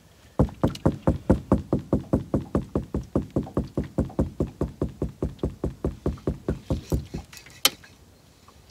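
Rapid, even knocking on the boat, about six knocks a second, which stops after about six and a half seconds; a single sharp click follows.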